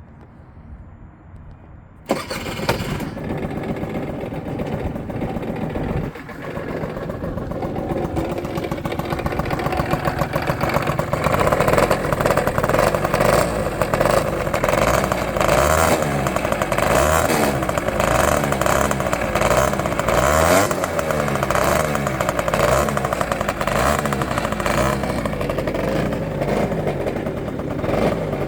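Adiva Hyper 5 scooter engine starting up suddenly about two seconds in, then running, dipping briefly a few seconds later and with revs rising and falling; it is being run so its engine noise can be checked for anything abnormal.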